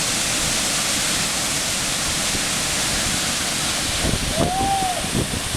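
Waterfall rushing, a steady, loud roar of falling water. About four seconds in, a few low bumps and one short tone that rises and falls cut through it.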